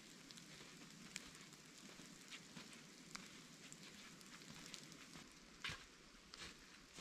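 Light rain falling on snow and branches: a faint steady hiss dotted with scattered drop ticks, with a brief louder scuff about five and a half seconds in.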